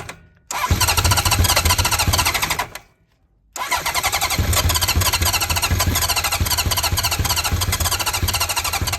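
Honda CB900F's 985cc big-bore inline-four cranking on the electric starter, cold after months of standing and with no choke on its Keihin FCR33 flatslide carburettors. It cranks in two goes, about two seconds, a short pause, then about five and a half seconds, without catching.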